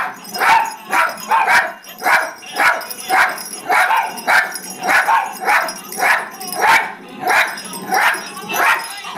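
Animated plush singing dog toy barking out a tune in recorded dog barks, in an even beat of about two barks a second.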